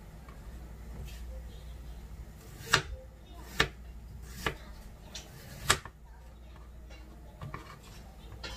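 Kitchen knife cutting a vegetable on a plastic cutting board. The blade knocks sharply on the board a few times, four loud strokes about a second apart in the middle and fainter ones near the end.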